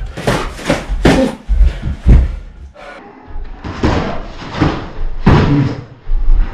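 Boxing gloves landing on bodies in a rapid series of dull thuds, in flurries with short gaps between them, as two men spar at close range.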